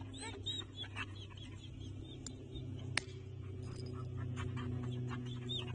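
Small birds chirping in many short, high calls over a steady low hum, with one sharp click about three seconds in.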